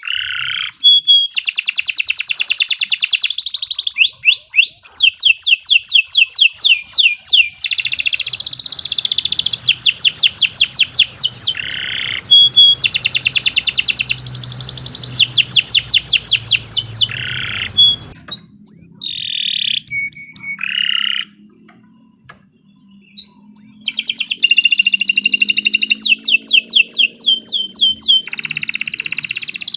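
Domestic canary singing a long song of fast, rolling trills and high whistled phrases, one after another, with a brief lull about two-thirds of the way through before the trilling starts again.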